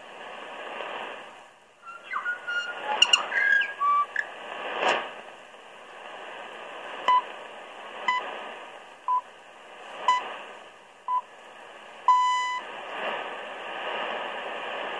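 Shortwave AM broadcast from Radio New Zealand International heard through a Sangean ATS-909X's speaker, with hiss and static that swell and fade. About two seconds in comes a short burst of warbling tones. Later come the station's time pips: five short beeps a second apart, then a longer beep marking the top of the hour.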